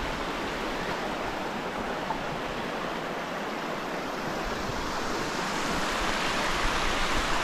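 Steady rush of running river water, an even hiss with no breaks, swelling slightly near the end.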